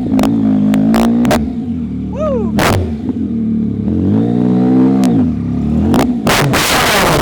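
2021 Yamaha MT-09's three-cylinder engine, straight-piped through an MIVV exhaust with no dB killer, revving up and down under throttle. Loud sharp pops and cracks come from the exhaust throughout, with a rapid cluster of them near the end.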